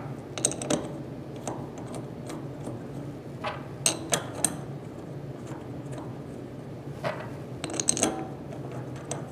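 Scattered light metallic clicks and clinks, in small clusters, of steel bolts being handled and threaded by hand into the metal body of a gas solenoid valve.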